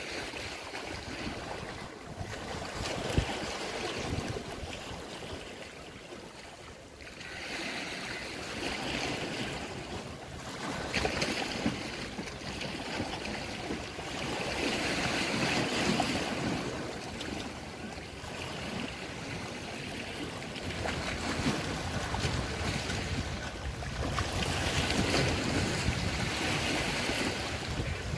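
Sea waves washing against the rocks of a breakwater, swelling and fading every few seconds, with wind rumbling on the microphone.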